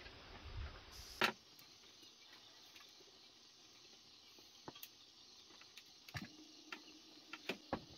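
Sporadic clicks and taps of people eating chicken and rice: a sharp click about a second in, then scattered smaller clicks, with two close together near the end.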